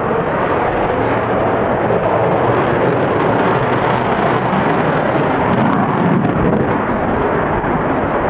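Loud, steady jet noise from a Chengdu J-20 twin-engine stealth fighter in flight, holding at an even level throughout.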